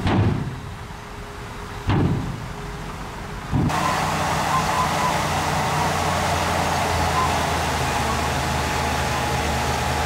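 Heavy diesel earthmoving machinery working: a low engine hum with two heavy thuds in the first two seconds, then about three and a half seconds in the sound changes abruptly to a louder, steady diesel engine run with a faint high whine.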